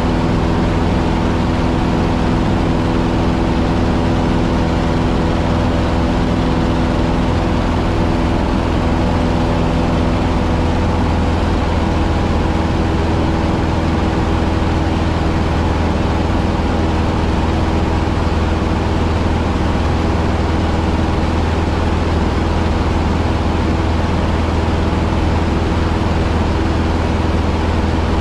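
Cessna 150's four-cylinder Continental O-200 engine and propeller, a steady drone heard from inside the cockpit in flight. The pitch changes a little about halfway through.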